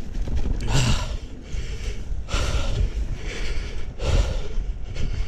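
A mountain biker's heavy, labored breathing close to the microphone: three loud breaths about a second and a half apart, made extra heavy by a chest cold. Under it runs a steady low rumble from the bike rolling over the dirt trail.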